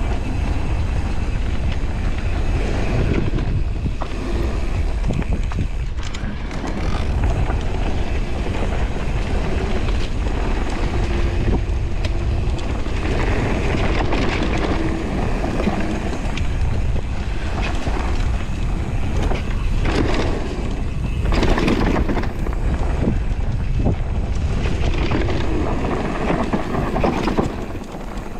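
Wind buffeting the camera microphone as a Radon Deft electric mountain bike rolls down a leaf-covered dirt singletrack, with steady tyre noise and occasional knocks and rattles from the bike over bumps.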